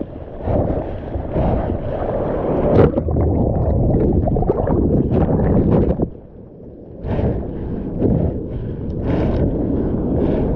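Sea water splashing and rushing around a mouth-mounted action camera, with wind buffeting the microphone. About six seconds in it drops to a muffled lull for about a second, then the splashing comes back.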